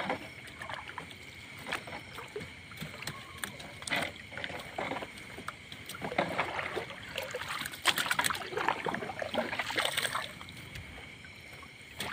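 Wet gill net full of sardines being hauled by hand over a boat's gunwale: water splashing and dripping off the mesh, with irregular light knocks and rustles.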